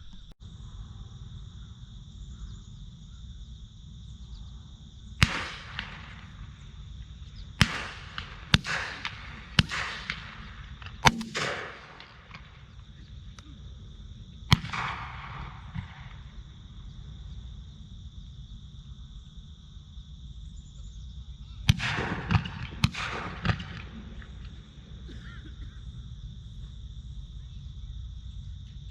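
Shotgun shots fired at doves, about ten in all. There is one shot about five seconds in, then a run of four spread over the next few seconds, one more a few seconds later, and a quick volley of about four near the end. Each shot has a short fading echo, over a steady high trill of insects.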